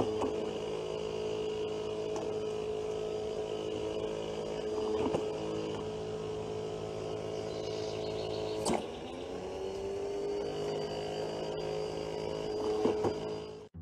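Automatic dog ball launcher's electric motor humming steadily, with one sharp knock about nine seconds in, after which the hum briefly shifts in pitch.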